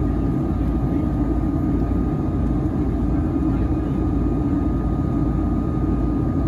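Steady in-cabin noise of a Boeing 757-300 airliner in flight on its descent: a low, even rush of airflow and engine rumble, with a faint steady whine above it.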